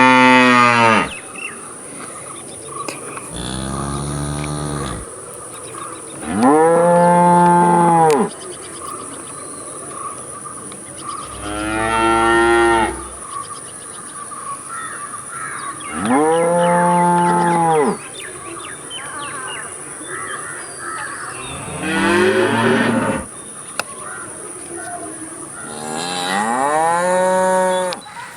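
Cattle mooing: about seven long moos a few seconds apart, each lasting one to two seconds and rising then falling in pitch, some deeper than others.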